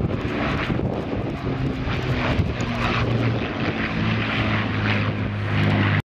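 Avro Lancaster bomber's four Rolls-Royce Merlin piston engines and propellers running in a steady drone as it flies past. The sound cuts off suddenly near the end.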